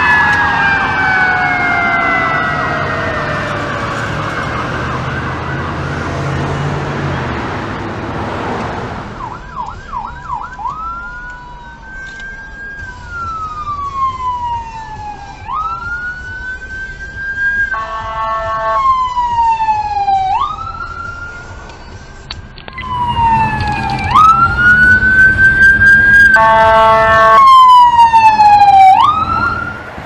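Emergency vehicle sirens. First a siren winds down over several seconds. Then come a few fast yelp sweeps and a rising-and-falling wail, broken twice by short blasts of a horn.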